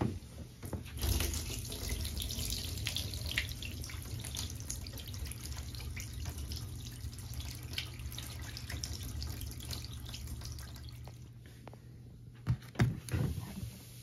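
Wash water from a mini portable washing machine's drain hose pouring into a tub drain. It starts about a second in and dies away about eleven seconds in, followed by a few loud knocks near the end.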